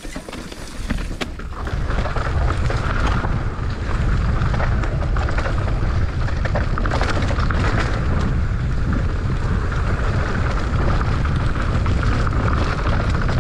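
Mountain bike descending a loose dirt trail at speed: a steady rush of wind on the helmet-camera microphone and tyres grinding over loose soil, building up over the first two seconds as the bike gathers speed. A few sharp clicks and knocks near the start.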